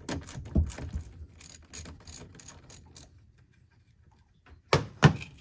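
Ratchet with a 10 mm socket clicking in quick runs as the negative battery terminal nut is loosened, then stopping. Near the end come two sharper, louder knocks.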